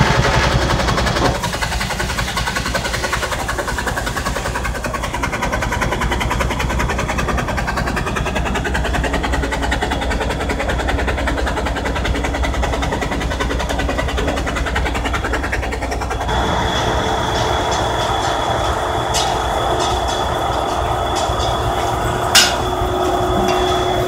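Steam-powered sawmill running: a steady mechanical drone from the steam plant. A thin steady whine joins about two-thirds of the way through, and a few sharp knocks come near the end.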